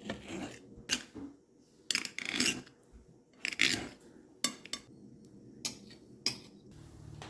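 Metal utensils clinking and scraping against a dish, in a series of sharp clicks and short scrapes.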